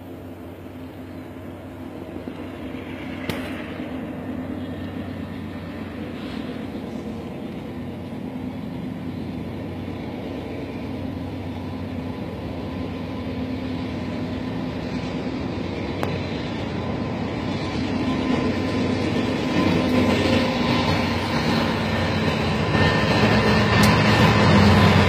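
Diesel locomotives of a BNSF freight train approaching and passing, their engines running with a steady low hum that grows steadily louder as the train comes near.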